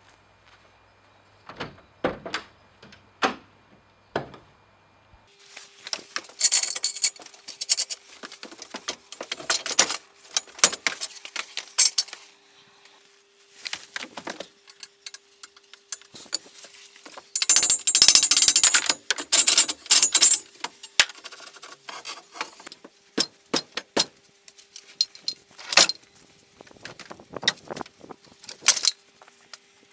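A few thuds, then steel floor-crane parts and chain clanking and rattling as they are handled, in irregular bursts.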